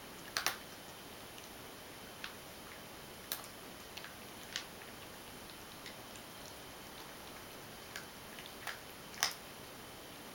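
A ragdoll cat crunching dry kibble from a stainless steel bowl: scattered sharp crunches at an uneven pace, the loudest near the start and near the end.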